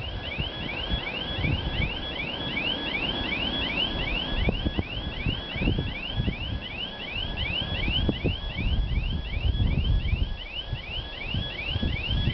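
Level crossing warning signal sounding: a rapid, high electronic chirp repeating steadily three to four times a second. Wind buffets the microphone underneath with an uneven low rumble.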